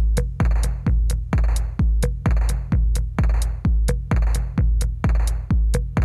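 Electronic background music with a steady drum-machine beat.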